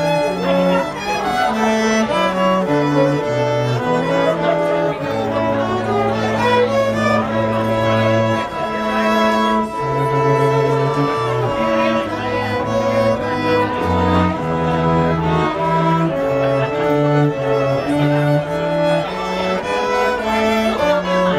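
String quartet playing live: violins carrying the melody over a cello line of long, held low notes.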